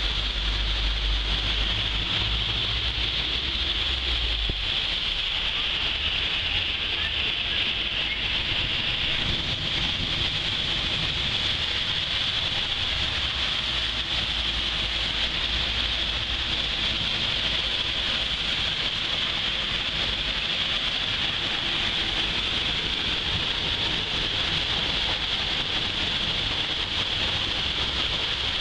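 Heavy rain falling steadily on a street, a constant hiss, with passing cars swishing through the water on the road. A low rumble is heavier in the first few seconds.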